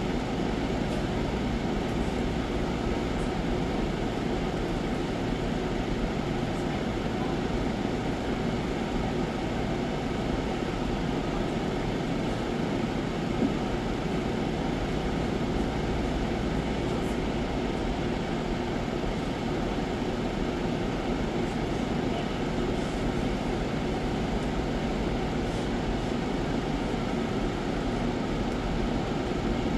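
Steady, even rumbling noise with no distinct events, like a large fan or air handler running.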